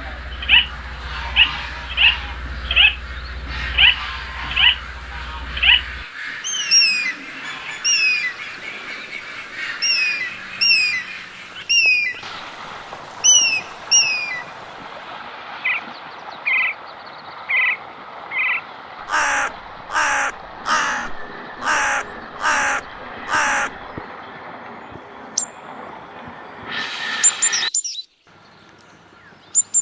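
Birds calling, several different kinds one after another: first a call repeated about every three-quarters of a second, then quick falling chirps, then a run of six loud, evenly spaced caws.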